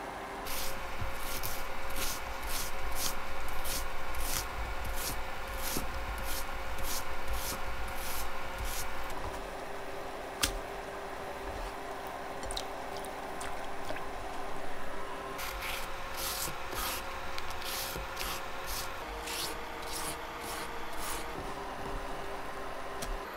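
Scallion shredder comb pulled again and again down a stalk of green onion on a wooden cutting board: a dry, rasping stroke about twice a second, in two runs with a pause in between.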